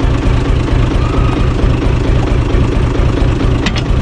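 UTB Universal 445 DT tractor's four-cylinder diesel engine idling steadily, heard close up. There is a short click near the end.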